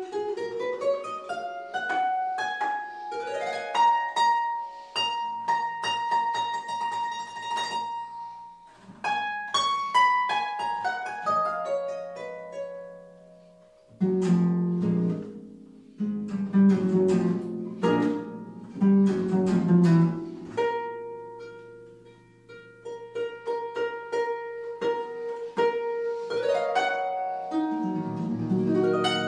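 Solo concert pedal harp playing: rising runs and arpeggios, then after a short pause about halfway, loud low chords, then a softer passage over a repeated note with another run rising near the end.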